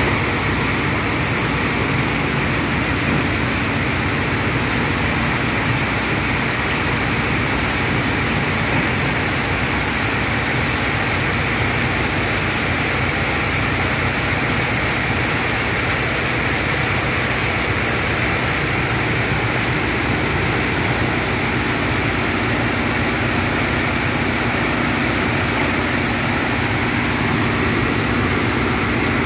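A heavy stream of rainwater pouring down and splashing onto wet concrete, a steady gushing that keeps the same level throughout.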